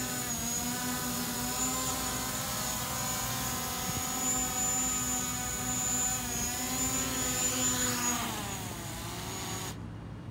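DJI Mavic Pro quadcopter's propellers whining as it descends to land; about eight seconds in the pitch falls away as the motors spin down after touchdown.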